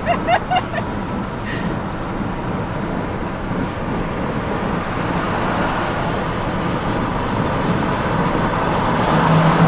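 Steady road and traffic noise heard from a moving car on a highway: a continuous rush of tyres, wind and engines, growing slightly louder near the end.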